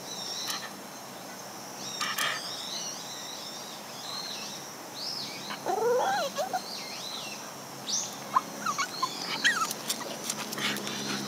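A cat meows once about halfway through, a call that rises and then falls. Many short high chirps sound throughout, with a few sharp clicks near the end.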